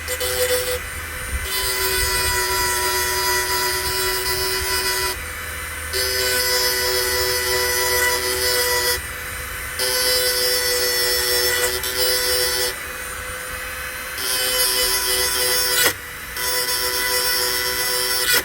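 A power grinder grinding the cutting edges of a hedge trimmer blade tooth by tooth. Each pass lasts about four seconds, and between passes there is a brief lull where the harsh grinding noise falls away, leaving the tool's own running note. There is a sharp click about three-quarters of the way through.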